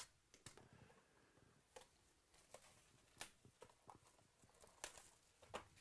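Faint, scattered clicks and taps of trading cards and box packaging being handled, about six light ticks spread through an otherwise near-silent room.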